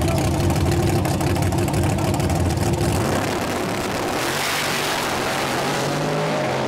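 Fox-body Mustang drag car's engine rumbling loud and rough at the starting line, then launching hard about four seconds in with a burst of hiss; its sound then thins to a steadier, more distant engine note as it runs down the strip.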